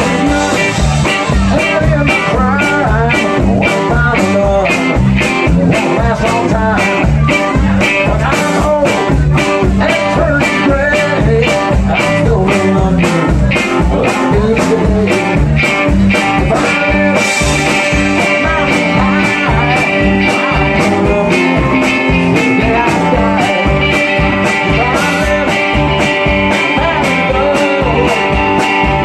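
Live band playing: electric guitar, electric bass and drums, with a steady drum beat under the guitar.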